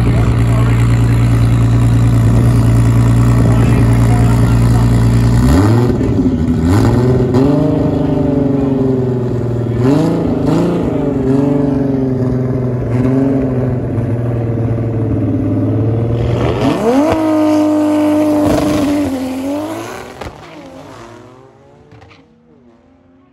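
Big-turbo Toyota 2JZ straight-six in a drag Cressida, held at steady revs for about five seconds, then revved up and down in repeated blips. Near the end the revs climb and hold as the car launches, and the sound fades as it pulls away.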